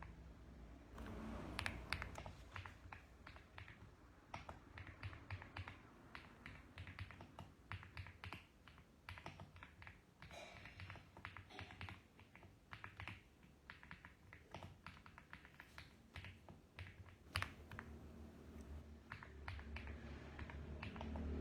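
Typing on a mechanical keyboard: irregular runs of sharp key clicks, several a second.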